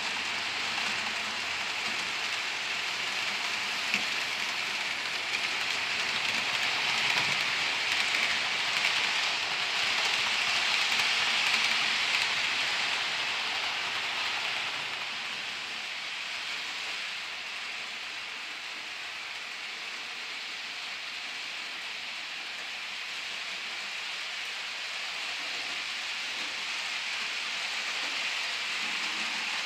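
HO scale model train, pulled by a Life-Like 0-4-0 steam switcher, running along the layout's track with a steady rushing hiss. The hiss grows louder for several seconds around the middle, then eases off.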